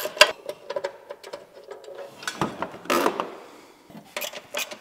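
Hand tools working on metal under a car: irregular ratchet-like clicks and metal clinks, with a short clattering rattle about two to three seconds in, as the oil cooler hardware is fitted.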